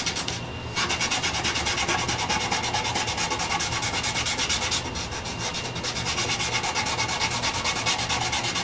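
Quick, even back-and-forth rubbing of a dye applicator on a bare maple board, working in a second coat of purple dye to even out the colour. There is a short pause about half a second in and a softer stretch around the middle.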